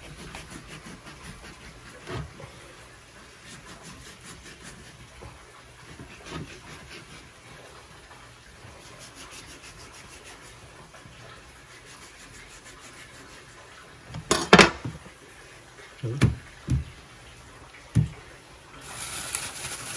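Kitchen knife cutting through a slab of charque on a wooden chopping board, with scattered knocks of the blade and hands on the board, the loudest cluster of knocks about two-thirds of the way through. A steady hiss runs underneath.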